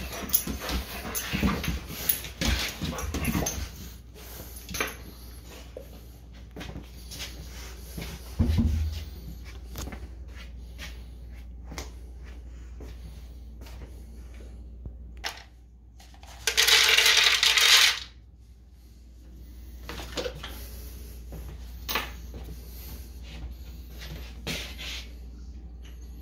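Goldendoodle's claws clicking and tapping on a hardwood floor in quick, excited bursts for the first few seconds, then only scattered ticks as the dog settles. About two-thirds of the way through comes a loud hissing rush lasting about a second and a half.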